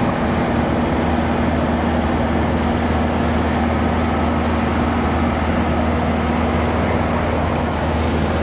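Steady drone of a songthaew's engine, with tyre and wind noise on a wet paved road, heard from the open rear passenger bed while it climbs at moderate speed.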